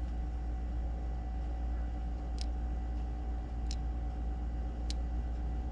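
Steady low hum with three faint, light clicks a little over a second apart: small metal parts being handled and tapped against each other in the fingers.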